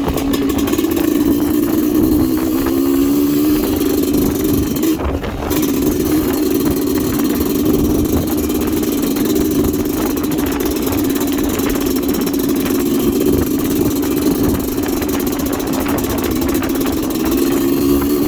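Kawasaki Ninja motorcycle engine running steadily. Its pitch shifts a few seconds in and again near the end, with a brief dip at about five seconds.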